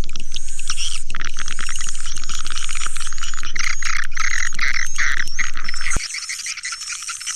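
Swiftlet calling sound: dense, rapid high chirping and twittering of swiftlets, of the kind played to lure them to nest. A low hum runs under it and cuts off suddenly about six seconds in, after which the chirping goes on more quietly.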